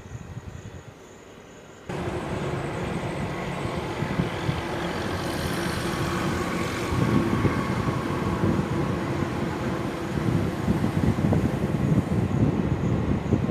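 A heavy vehicle's engine running with road noise, starting abruptly about two seconds in after a quiet stretch and then staying steady and loud.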